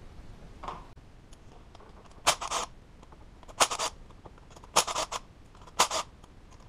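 Cordless driver and socket working the fuel rail bolts on a V6 engine: from about two seconds in, short scratchy metallic bursts come about a second apart, often in quick pairs.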